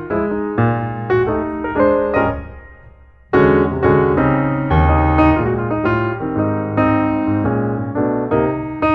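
Background piano music: a solo piano playing chords and melody, fading away about two seconds in and coming back with a loud chord a little after three seconds.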